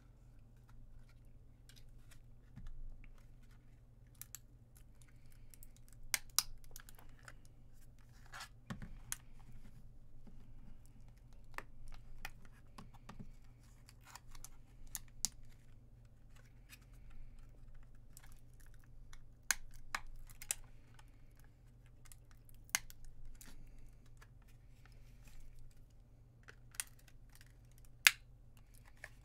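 Plastic casing of a laptop battery pack being worked open with hand tools: irregular clicks, snaps and scrapes of plastic, with a sharp snap near the end, over a steady low hum.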